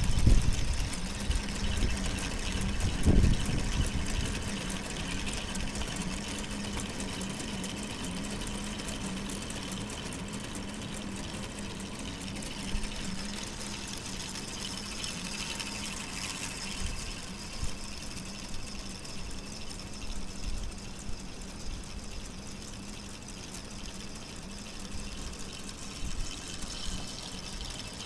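A solar-powered K'Nex model four-cylinder engine running: the small solar motor turns the plastic gear train, crankshaft, pistons and valve gear with a steady whirring hum and light clicking. The sound is picked up with the microphone resting on the model's frame. There are a couple of louder knocks about three seconds in.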